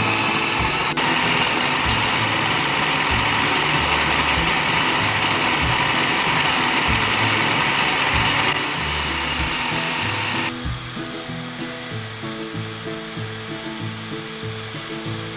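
Food processor motor running steadily on low speed, grinding cooked great northern beans with spices into a paste. Its sound changes about ten seconds in. Background music with a steady beat plays underneath.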